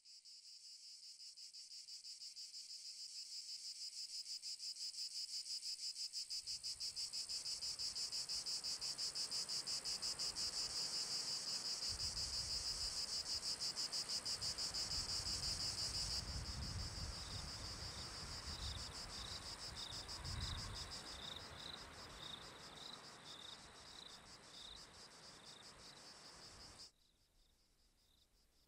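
Cicadas buzzing in a dense, rapidly pulsing chorus that fades in from silence and swells. A low rumble runs underneath from a few seconds in, and a repeated high chirp joins around the middle. The whole chorus cuts off abruptly near the end.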